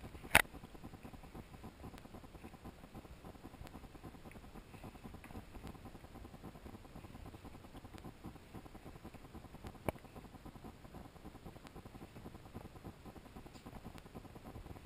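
Faint rustling and handling noise from a handheld camera being carried, with a sharp click about half a second in and a smaller one near ten seconds.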